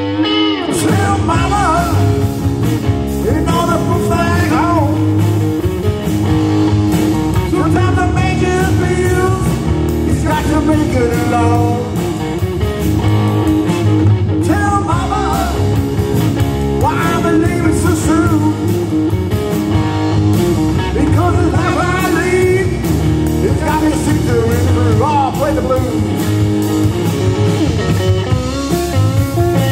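Live blues-rock band playing through a PA: electric guitar, bass guitar and drum kit, with a sung lead vocal.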